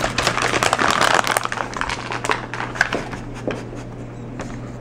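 Crinkling, rustling handling noise as dog sausage treats are handled, dense over the first second and a half, then thinning to scattered small clicks.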